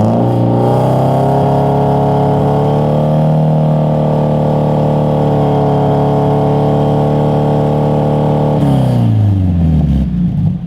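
Car engine and exhaust revved up and held at steady high revs, about 4,500 rpm, for a static exhaust noise test, then let back down to idle near the end.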